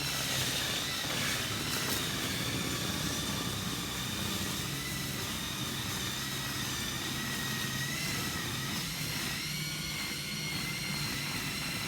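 Pressure washer running steadily, a continuous machine drone with a high steady whine over it.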